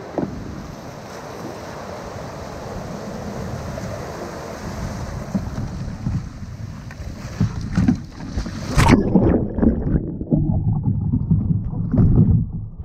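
Shallow surf washing and hissing around a kayak, with wind buffeting the microphone. About nine seconds in, a wave breaks over the boat with a loud splash; after it the sound turns muffled, with low sloshing thumps, as water covers the microphone.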